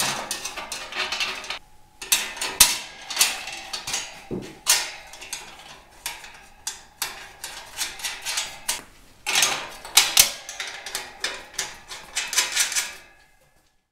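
Sheet-steel fan shroud clattering, scraping and knocking against a cast radiator shell as it is worked into place by hand, in irregular bursts of metallic clicks and rattles.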